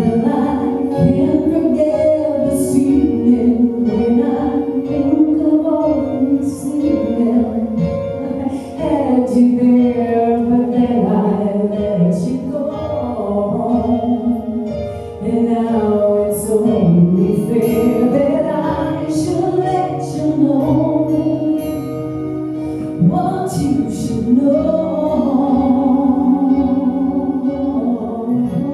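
Music with singing: a sung melody over band accompaniment.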